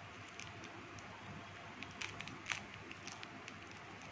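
Faint small clicks and ticks from a Pomeranian puppy moving about at a glass bowl on a plastic table, over a steady low hiss. Two sharper ticks come about two and two and a half seconds in.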